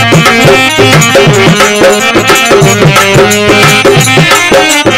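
Harmonium and dholak playing an instrumental interlude of a folk kirtan bhajan: sustained harmonium chords over a brisk, steady dholak rhythm, with small hand cymbals (manjira) ticking along.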